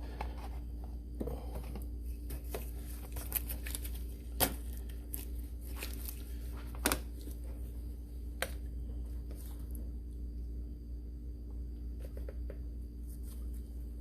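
Scattered clicks and crinkling as a plastic jug of new motor oil is handled and opened for pouring, over a steady low hum.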